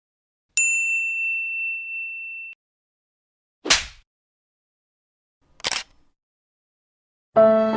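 A single bright bell ding from a meme sound-effect clip, ringing for about two seconds and then cut off abruptly. Two short noisy bursts follow a few seconds apart, and near the end a violin music clip begins.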